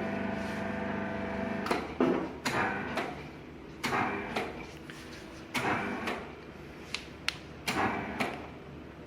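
Sharp knocks and clunks, a second or two apart, from the heater plate of a hydraulic HDPE butt-welding machine being handled and taken out. A steady hum at the start stops about two seconds in.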